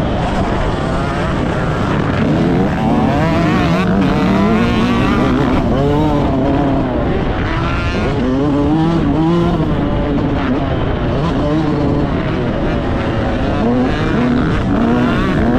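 Yamaha YZ125's 125 cc single-cylinder two-stroke engine, heard from onboard, revving up and dropping back again and again as the bike is ridden hard through the gears.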